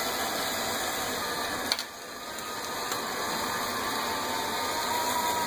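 Ground-beef taco meat with chopped green chilies sizzling steadily in a skillet on medium heat, with one short click a little under two seconds in.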